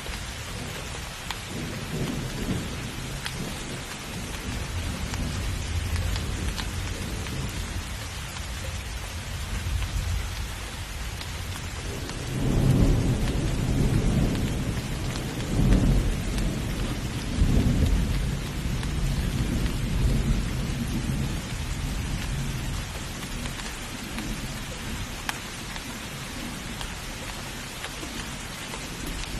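Heavy rain falling steadily while thunder rumbles, swelling loudest about halfway through with several rolling peaks before fading back.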